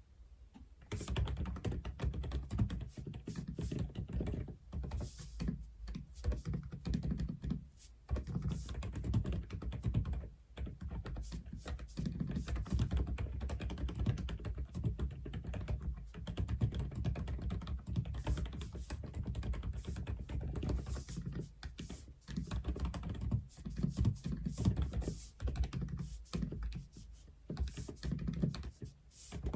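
Typing on an Aula F87 (독거미 F87) mechanical keyboard: fast runs of key clacks that start about a second in, with short pauses between bursts.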